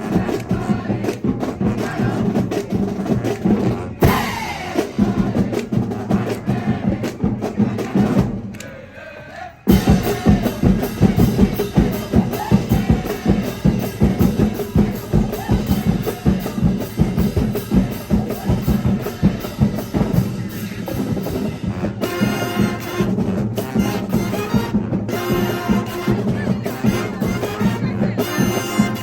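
Marching band playing, with drums beating a steady rhythm under held tones from the horns. The music falls away briefly about eight seconds in, then comes back suddenly at full volume.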